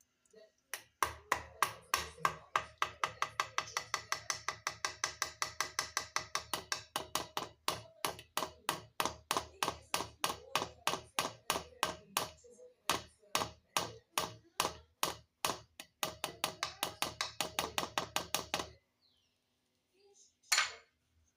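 Metal kitchen utensil knocking against a metal vessel in a fast, even rhythm of about four ringing strikes a second. It stops shortly before the end, and one more knock follows.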